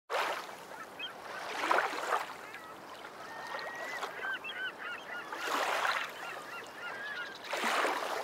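Seashore ambience: surf washing in about four times, with many short, high calls from seabirds in between.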